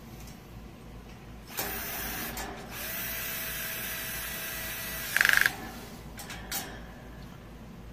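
Power screwdriver running screws into a metal bird cage frame, its motor humming steadily, then a short loud rapid rattle about five seconds in, with a few lighter clicks after.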